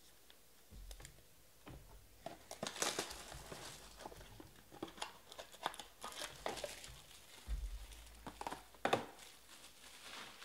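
Hands opening a Panini Contenders Optic football card box and handling its foil-wrapped packs: irregular crinkling of wrappers and cardboard with tearing, loudest about three seconds in and again near the end.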